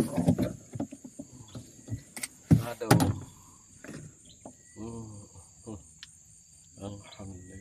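A few sharp knocks and clatter as fishing rods and gear are handled in a small boat, the loudest about two and a half to three seconds in, over a steady high insect trill. A man's voice murmurs briefly in the second half.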